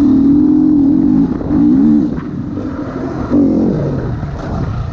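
Motocross bike engine on the track, opened up and closed off in a series of short throttle bursts so its pitch rises and falls. It drops away as the bike slows around four seconds in. The engine is running on a freshly replaced piston.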